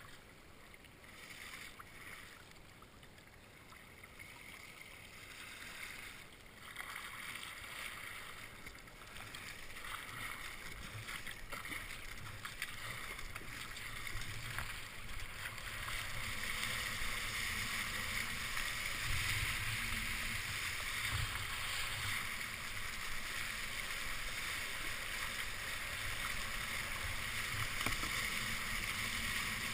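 Sea kayak on choppy water: paddle strokes splashing and water slapping against the hull, building about halfway through into a steady, louder rush of whitewater and spray as the kayak is carried along on a breaking wave.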